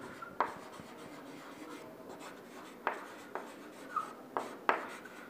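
Chalk writing on a blackboard: about six sharp taps as the chalk strikes the board, with faint scratching of the strokes between them.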